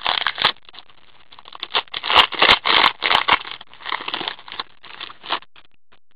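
Foil trading-card pack wrapper being torn open and crinkled by hand, with cards scraping as they slide out: irregular crackling that stops about five and a half seconds in.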